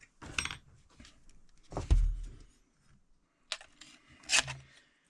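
Tool parts being handled: plastic and metal knocks, clicks and rattles, with one heavy thump about two seconds in and a sharp clatter near the end.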